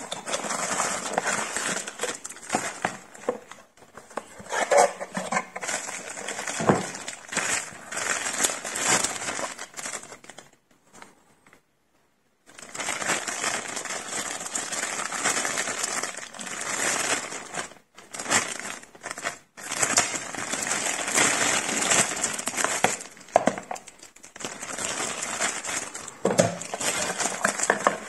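Plastic packaging crinkling and rustling as an XLR cable is unwrapped and handled, with many small crackles and clicks. The sound stops briefly about halfway through, then resumes.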